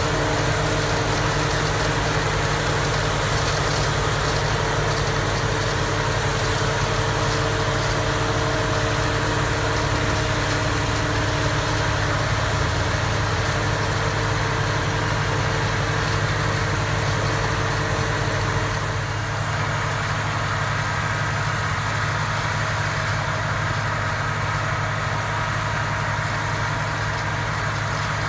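Self-propelled tomato harvester running steadily, a deep engine hum under a broad mechanical rush. About two-thirds of the way through it turns a little quieter and duller.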